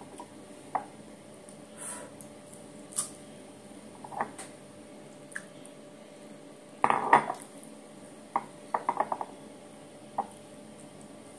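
Short clicks and clinks of guava slices and fingers against a ceramic bowl and glass jar as the fruit is handled and dipped, with a louder clatter about seven seconds in followed by a quick run of clicks.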